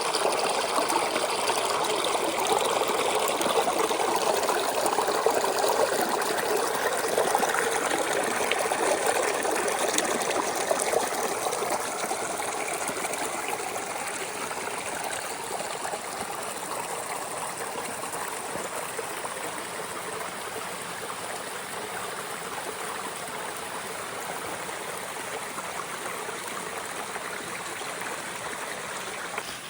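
Stream water flowing over stones, a steady rushing and trickling that slowly grows fainter through the middle and then holds at a lower level.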